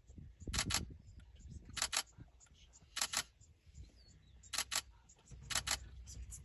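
Camera shutter firing shot after shot, each shot a quick double click, about five shots spaced a second or so apart, typical of a single-lens reflex camera.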